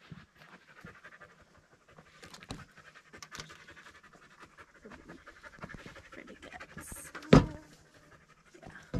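Dog panting, with one sharp knock about seven seconds in, the loudest sound.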